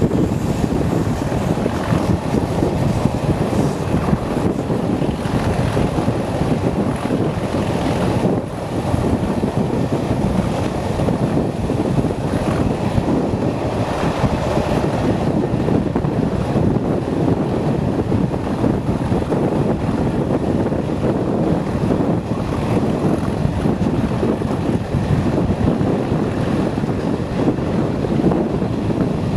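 Class 37 diesel locomotive hauling the train under power, heard from an open coach window with heavy wind buffeting the microphone and the rush of the moving train.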